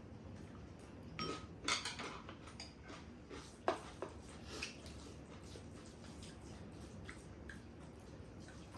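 Cutlery clinking and scraping against dishes during a meal: a few sharp clinks in the first half, the loudest about two seconds and three and a half seconds in, then fainter taps.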